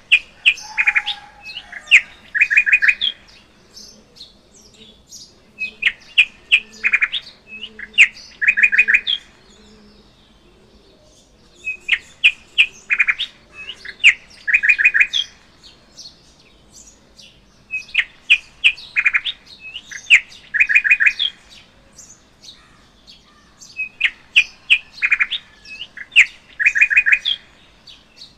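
Birdsong: a bird chirping in bouts of sharp chirps and quick trills, each bout about three seconds long. The same bout repeats about every six seconds, with short quiet gaps between.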